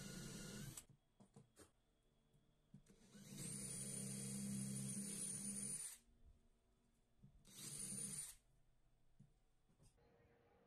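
Hand-held electric drill with a twist bit boring through stacked plywood, running in three bursts: briefly at the start, for about two and a half seconds in the middle, and briefly again near the end, with small knocks between.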